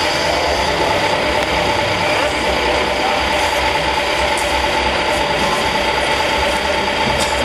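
Radio-controlled scale trucks' engine sound idling steadily, with a steady whine over a low rumble.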